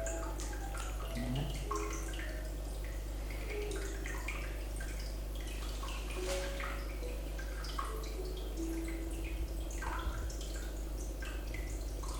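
Soft ambient background music of sparse short notes at changing pitches, laid over water-drop sounds dripping irregularly, with a steady low hum underneath.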